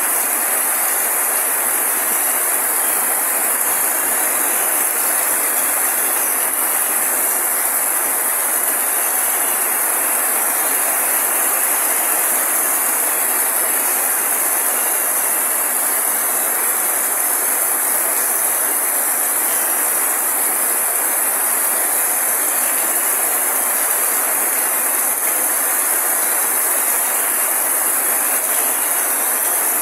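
Heavy rain falling steadily on foliage: a dense, unbroken hiss that keeps the same level throughout.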